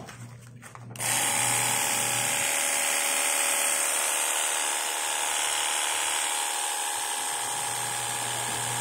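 INGCO CPWLI20082P cordless lithium-ion pressure washer switched on and running: its electric motor and pump give a steady tone under the hiss of the water jet leaving the nozzle, starting suddenly about a second in.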